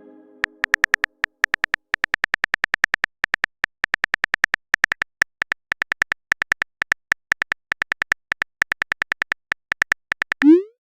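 Simulated phone-keyboard typing clicks from a chat-story app, several short clicks a second, unevenly spaced, as a message is typed out. A short rising blip comes near the end.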